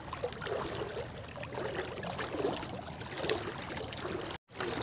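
Shallow seawater sloshing and splashing with irregular small splashes around wading legs; the sound cuts out for an instant near the end.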